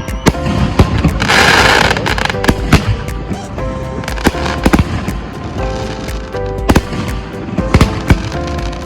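Fireworks going off, a rapid string of sharp bangs with a dense crackling burst about a second in, under background music.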